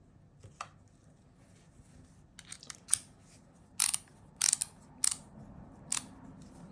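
A handful of sharp, irregular clicks and clacks of a hand tool being handled, spaced unevenly and loudest around the middle.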